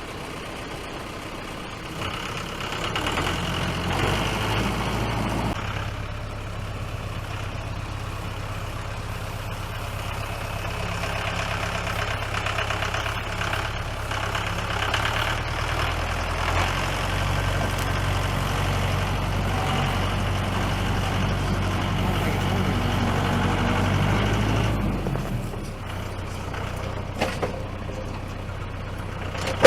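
Tractor engine running under load as it works to lift a heavy oak log on its forks. The engine comes up about two seconds in, holds a strong, varying note through the middle, and eases back about 25 seconds in.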